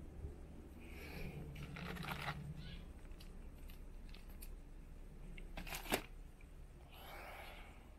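Faint rustling and light clicks of cardboard, plastic and foam packaging being handled, with a sharper click about six seconds in.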